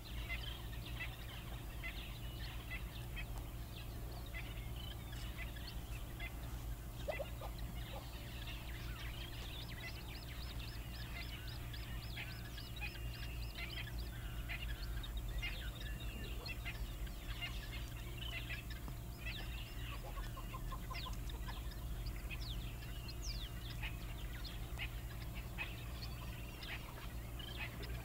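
Wild birds calling in a busy chorus of short chirps and fowl-like clucking calls, with a fast high trill about ten seconds in, over a steady low hum.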